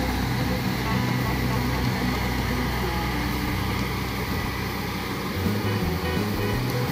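Kubota rice combine harvester running steadily as it cuts rice: a diesel engine hum with the whirr of the cutting and threshing machinery, the pitch shifting slightly a couple of times.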